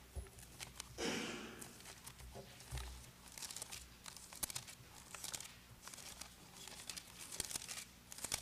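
Faint rustling and crinkling of thin Bible pages being turned, many short irregular crackles with a louder brushing sweep about a second in.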